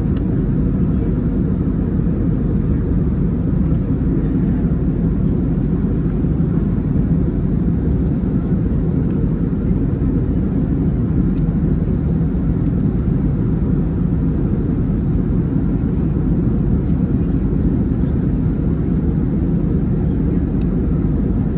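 Airbus A321neo passenger cabin in flight: a steady, unbroken low rush of airflow and engine noise.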